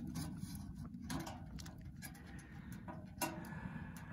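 Faint scattered ticks and crackles from a wood fire burning in a small stainless-steel camping stove, over a low steady rumble. One sharper click comes a little after three seconds in.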